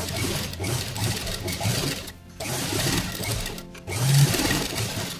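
Sewing machine stitching through layered cotton fabric, running in three stretches with brief stops about two seconds in and again near four seconds.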